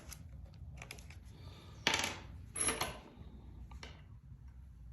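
Small steel parts, impact driver bits and screws, clinking and clattering as they are handled: a short clatter about two seconds in, another just after, and a fainter click near the end.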